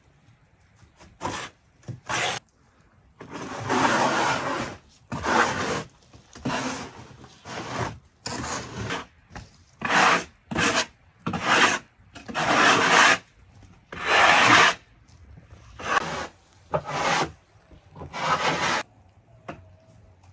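Hand sweeping fresh snow off a wooden countertop: about sixteen rubbing, scraping strokes, most under a second and a few up to about a second and a half, with short pauses between them.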